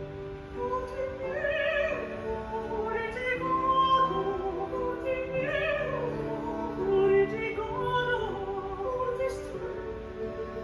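Operatic classical music played back on a stereo system: a singing voice with wide vibrato over sustained accompanying notes.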